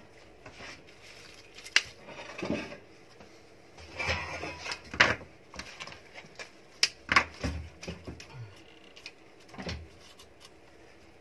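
Hands handling artificial flowers and a cardboard gift box: scattered clicks, taps and rustles at an uneven pace, with a few sharper knocks.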